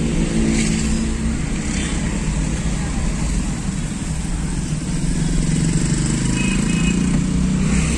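Steady engine hum and road noise of a car driving through town traffic, heard from inside the cabin, with motorcycles close around it.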